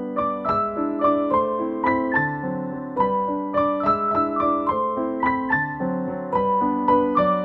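Piano music: a gentle melody of struck notes, a few each second, over lower chords.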